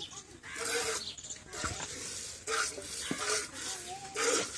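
Cow's milk squirting by hand from the teats into a steel pot partly full of frothy milk: a hissing splash with each squeeze, about once a second.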